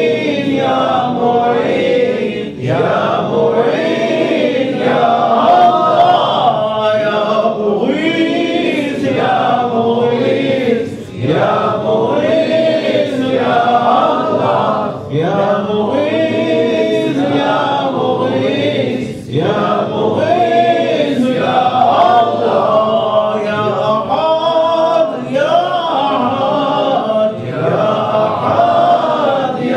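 Men's voices chanting Sufi dhikr together as a group, in short melodic phrases repeated every couple of seconds.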